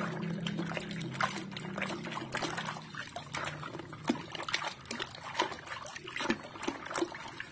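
Soapy water in a basin splashing and trickling as a hand swishes and scrubs a small plastic toy vehicle in it, with irregular small splashes and drips throughout.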